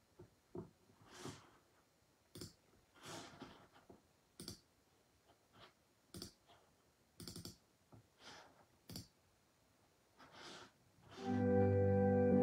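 A few faint, scattered clicks and soft rustling noises, then recorded church music starts suddenly about 11 seconds in with a held, sustained chord.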